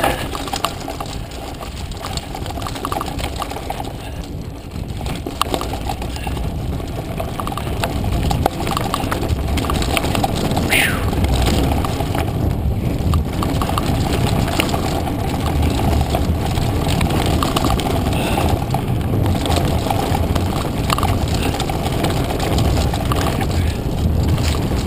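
Mountain bike riding fast downhill on a dirt trail: continuous wind buffeting on the chest-mounted camera's microphone, tyres rolling over dirt and the bike's parts rattling with many small knocks. A short high falling squeal sounds about eleven seconds in.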